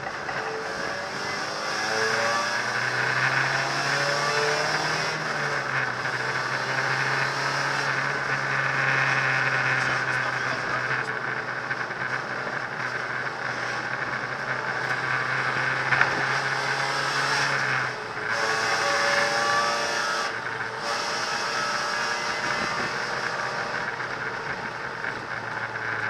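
Hyundai Accent rally car's engine running hard under load, heard inside the stripped cabin, its note rising and falling as the car is driven and shifted. The engine note breaks off briefly about eighteen seconds in, and there is a single sharp click about sixteen seconds in.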